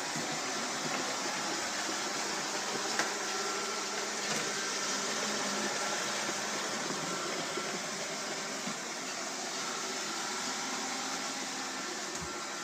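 iRobot Roomba 780 robot vacuum running: a steady whirr from its motor and brushes with a faint steady tone, and one light click about three seconds in.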